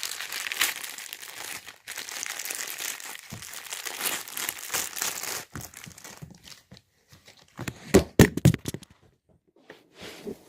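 Several seconds of crinkling, crackling handling noise, then a cluster of loud knocks and thumps about eight seconds in as the camera falls over.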